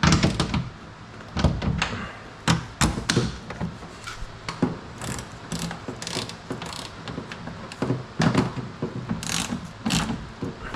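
Hand ratchet clicking in short irregular spurts, with metal clanks and knocks, as loosened bolts are tightened back up.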